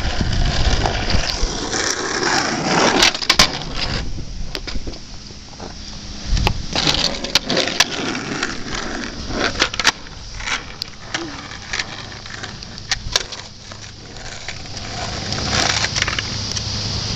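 Skateboard wheels rolling on asphalt, with several sharp wooden clacks of the tail popping and the board landing during ollies.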